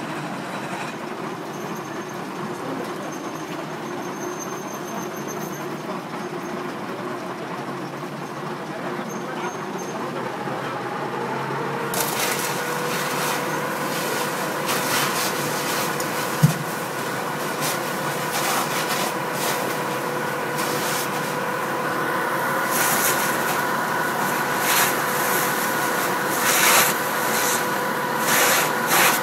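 Car fire being fought with a fire hose: a low engine rumble at first, then about twelve seconds in a loud hiss starts, full of crackles, as the water jet hits the burning car, with a steady hum alongside. One sharp pop comes a few seconds after the hiss begins.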